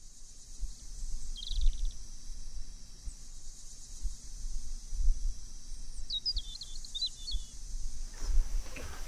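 Small birds chirping: one short chirp about a second and a half in, then a quick run of chirps about six seconds in, over a steady high hiss and an irregular low rumble. A broad rush of noise comes in near the end.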